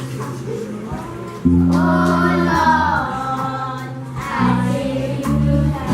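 Group of young children singing a gospel song together, over a steady instrumental accompaniment of held chords.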